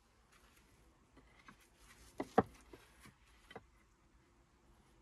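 Stone knocking against stone as wall stones are shifted and set in a dry stone wall: a pair of sharp clacks about two seconds in, the loudest sound here, then a few lighter knocks over the next second and a half.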